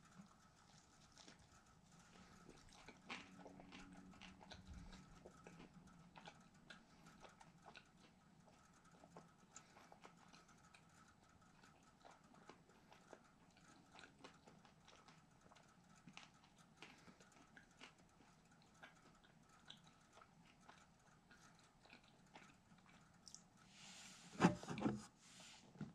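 Faint, close chewing and mouth sounds of a man eating a fried chicken sandwich, with scattered small clicks. Near the end comes a brief, louder clatter of handling noise as he reaches toward the camera.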